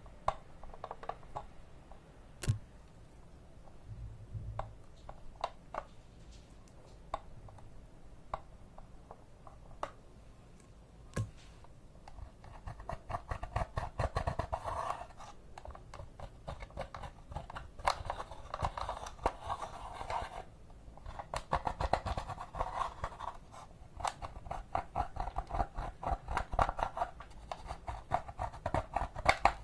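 Hands handling small craft materials: scattered single clicks and taps, then from about twelve seconds in dense runs of rapid crackling clicks and scrapes in bursts a second or two long.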